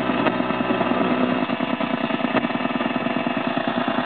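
Rapid, repetitive buzzing interference from a car stereo's speakers, caused by an iPhone 3G connected through an XCarLink iPod/iPhone adapter. It is a ground-noise or digital-interference fault in the adapter hookup, and it grows worse while the phone's touchscreen is being used.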